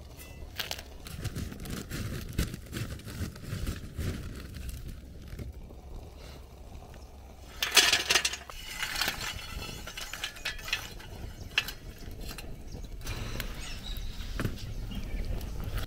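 Black Jewel charcoal poured from a paper bag into a metal chimney starter: scattered clicks and rustling, then a loud clatter of charcoal lumps falling into the chimney about eight seconds in, followed by more lighter clinks and paper rustling.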